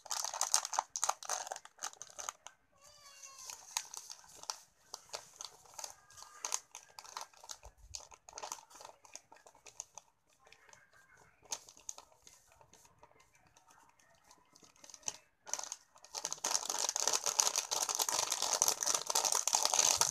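Foil instant-coffee sachet crinkling in the hands: crackling at the start as it is torn open, sparser rustling while it is emptied, and dense crumpling over the last few seconds as the empty packet is scrunched up.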